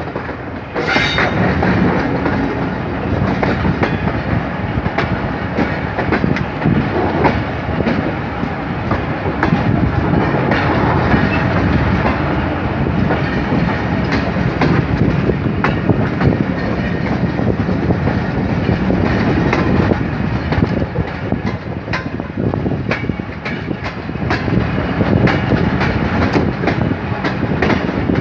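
Passenger train running, heard from a coach doorway: a steady rumble of the moving coaches with the wheels clattering over the rails in many short clicks. A brief high-pitched screech comes about a second in.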